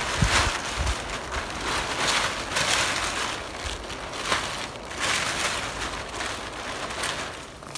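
Cheap plastic tarp crinkling and rustling as it is unfolded and spread out, in uneven swells of noise.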